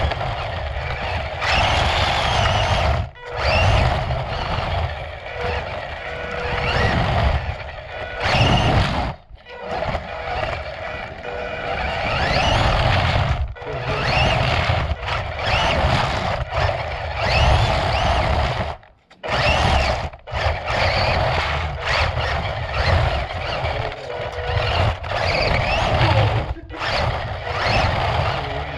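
Electric RC car's motor and gears whining under repeated bursts of throttle, the pitch rising each time it speeds up, over a rumble of tyres on concrete, heard from a camera mounted on the car. The sound drops out briefly several times when the throttle is let off.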